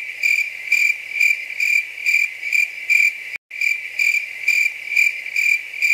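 Cricket chirping sound effect: a steady high trill pulsing about twice a second, cut in abruptly and briefly dropping out about three and a half seconds in.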